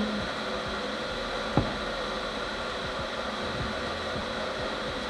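Kitchen extractor fan running with a steady rush of air and a faint high whine. A single knock comes about a second and a half in.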